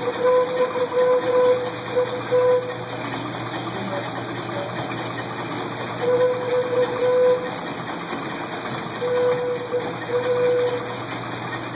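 Pedal-driven air compressor running with a steady noise while a homemade organ pipe sounds a single note in short toots: several quick ones at first, a longer held note about six seconds in, and two more near the end.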